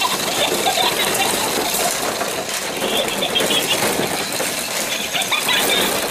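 Hollow plastic ball-pit balls clattering and rattling against each other and the wire pen as French bulldog puppies scramble through them, with a few short high squeals mixed in.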